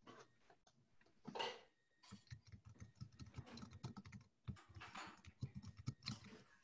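Faint typing on a computer keyboard: a run of quick, irregular key clicks, with one louder brief noise about a second and a half in.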